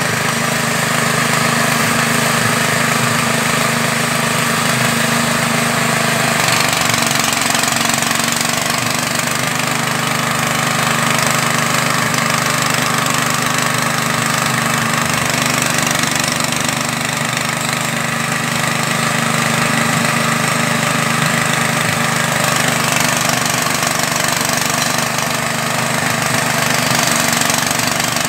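Small air-cooled engine running steadily, driving a mini extruder that is pressing out floating fish feed pellets. Its pitch dips slightly about six seconds in.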